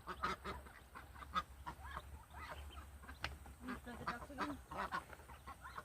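Hens and young poultry calling: a run of short clucks and chirps, with a few longer pitched clucks in the middle.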